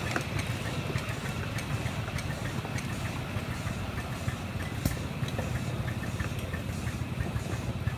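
Ride-on miniature train rolling along its track, a steady low rumble with irregular clicks and knocks from the wheels and running gear.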